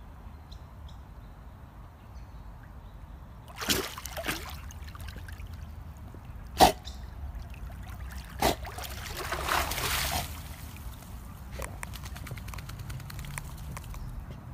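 Water splashing and sloshing as a Labrador retriever swims in a pond, starting about three and a half seconds in, with one sharp knock midway that is the loudest sound.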